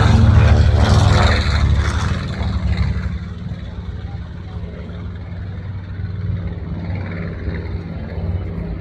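Large propeller airplane passing overhead, its engines giving a loud low drone that fades over the first few seconds, then holds at a steadier, quieter level.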